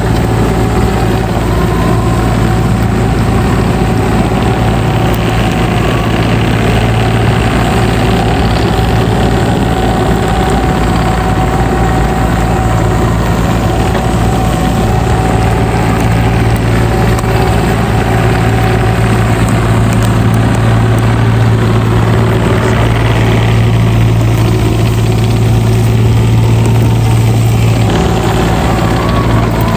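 Engine of heavy equipment running steadily at a constant idle, with a strong low hum.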